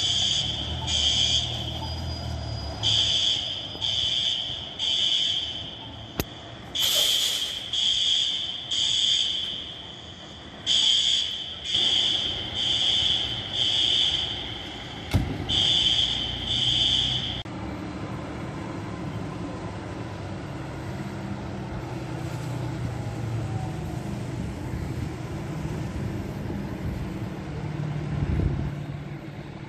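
Building fire alarm sounding: loud, high electronic beeps about one a second, in short groups with brief pauses. The beeping stops about two-thirds of the way through, and a low, steady engine hum of idling vehicles is left.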